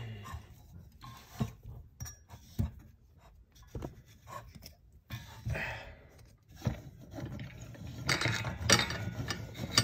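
Metal parts and hand tools clinking and knocking against a 4L60E transmission clutch drum during assembly, in irregular single knocks, with a louder stretch of scraping and rattling near the end.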